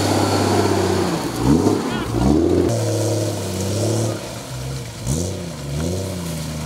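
Off-road vehicle's engine running under load and revving up and down several times, its pitch rising and falling over a steady low note.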